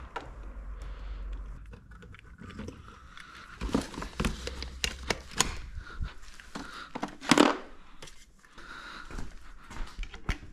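Handling noises: irregular clicks, knocks and crinkling of things being moved about, with the loudest knock about seven seconds in.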